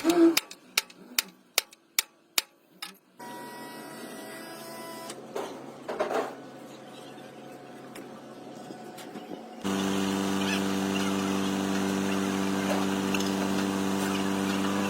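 A run of about seven sharp knocks, roughly two a second, then a low steady hum; after an abrupt change a steady engine-like drone runs on through the second half.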